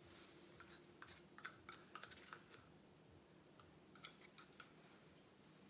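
Near silence: faint room tone with a scattering of small, faint clicks and ticks, in two clusters about a second in and again around four seconds in.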